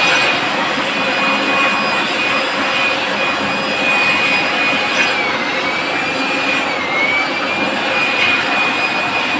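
York air handling unit's electric fan motor running with a broad rushing noise and a steady high-pitched whine, which sags briefly in pitch twice. Both motor bearings have run dry and need replacing.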